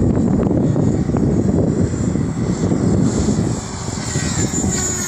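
Align T-Rex 550 electric RC helicopter in flight: its rotor blades give a low rushing noise and its brushless motor and drive give a steady high whine, which rises in pitch near the end.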